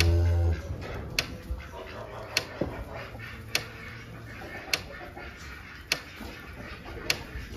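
A cow gives a short, low moo at the start. A sharp tick comes back about every second and a bit.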